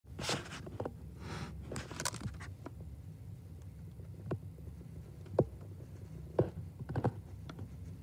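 Small bird moving and pecking among black sunflower seeds in a clear plastic window feeder. A scratchy rustle of seeds in the first couple of seconds is followed by a few sharp, scattered clicks of beak on seed and plastic.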